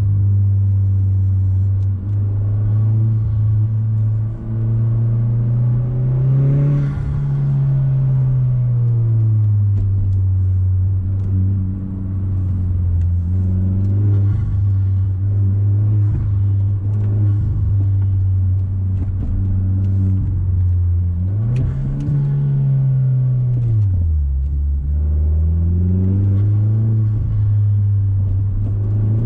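Mazda6's turbocharged four-cylinder engine and exhaust, heard from inside the cabin while driving: a steady low drone whose pitch climbs as the car accelerates about seven seconds in and again near twenty-two seconds. It drops low just after and then rises once more.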